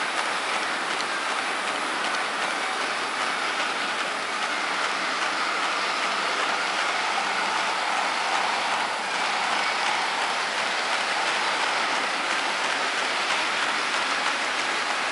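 Märklin H0 model freight train, a string of refrigerator wagons, rolling steadily past on Märklin M-track: a continuous, even rolling noise of the wagon wheels on the metal track.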